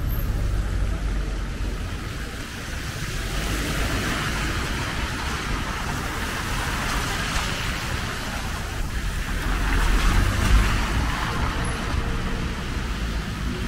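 Street traffic noise: cars passing on a city street, with a low engine and tyre rumble that swells about ten seconds in.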